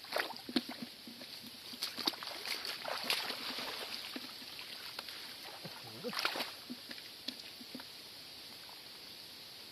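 Shallow muddy water sloshing and splashing as a round mesh scoop net is worked through it, in a string of irregular splashes, the loudest about six seconds in.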